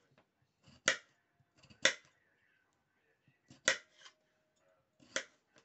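Kitchen knife slicing a raw peeled potato into thin rounds, the blade knocking on the cutting board with each cut: four sharp knocks at uneven intervals of one to two seconds.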